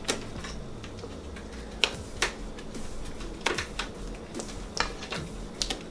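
Spatula scraping and tapping inside a stainless steel mixing bowl as a thick pudding mixture is scooped out, giving a series of scattered light clicks and knocks at irregular intervals.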